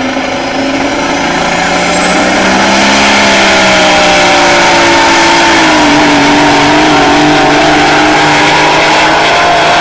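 Diesel engine of a pulling semi truck running at full throttle while dragging a weight-transfer sled. It gets louder over the first two seconds, and its pitch sags around the middle as the sled's load builds, then holds; a rising whine comes in about two seconds in.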